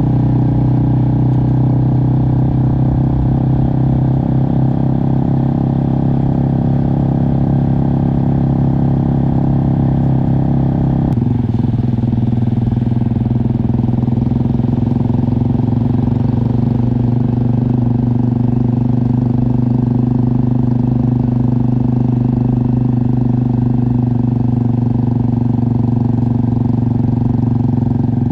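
Motorcycle engine running steadily while riding. Its tone changes abruptly about eleven seconds in, then holds steady again.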